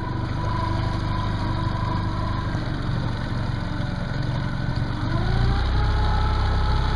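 Tohatsu four-stroke outboard motor running steadily at low speed. About five seconds in its pitch rises and it gets a little louder.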